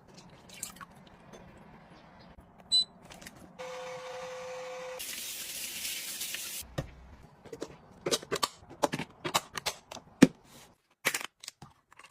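Household handling sounds. About three and a half seconds in, a short electric hum runs for over a second; it is followed by a hiss lasting about a second and a half, then a quick run of sharp clicks and taps.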